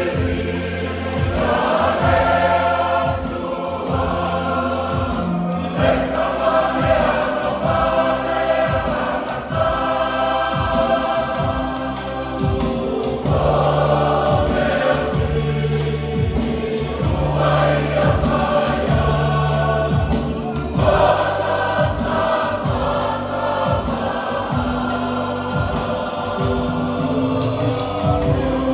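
A Samoan church choir singing a hymn in parts over backing with sustained bass notes and a steady beat, sung in phrases with short breaks.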